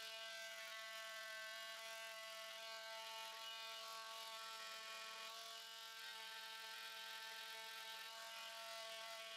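Small electric detail sander running, held against small walnut workpieces: a faint, steady motor whine.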